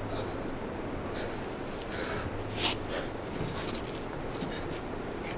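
A woman sniffling and breathing unsteadily in distress: several short sniffs and breaths, the sharpest about two and a half seconds in.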